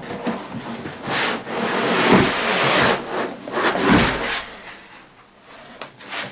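Foam packing blocks rubbing and scraping against a cardboard box as they are worked loose and lifted out, in several rough scraping strokes that die down near the end.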